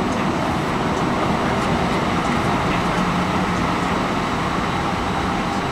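Steady engine and air noise heard inside the cabin of an Airbus A319 airliner taxiing on the jet engines at low power.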